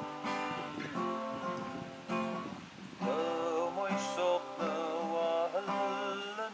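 Acoustic guitar being strummed, with a voice singing a melody over it from about three seconds in.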